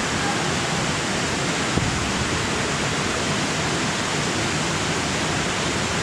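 Waterfall in a cave river, rushing steadily as one even, unbroken noise.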